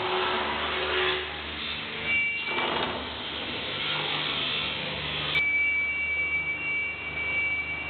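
Multi-rip MDF slicing machine running, its saw blades giving a steady high whine over a noisy rush. A sharp click comes about five seconds in, after which the whine holds steady on two high tones.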